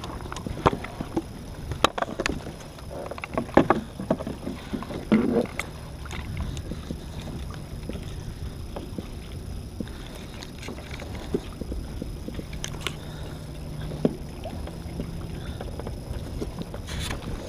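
Knocks and clatters of fishing gear being handled aboard a kayak, busiest in the first six seconds, then only occasional clicks.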